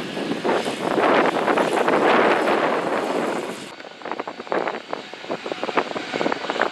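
Airplane engine noise, loud and ragged rather than steady. It cuts abruptly and drops in level a little over halfway through.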